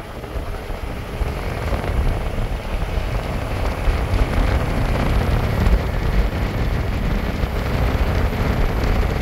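Truck driving on a rough stretch of road: a steady low rumble of engine and tyres.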